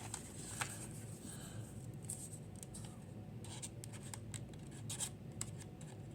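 Faint rustling and a run of light ticks and scrapes from plastic trading-card sleeves and a card being handled while a card is sleeved.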